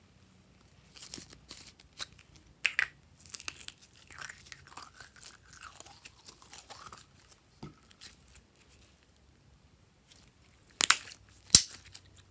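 Glossy slime being pulled out of a plastic container and squeezed by hand: sticky clicking, crackling and squelching, with a faint wavering squeak in the middle and two sharp snaps about half a second apart near the end.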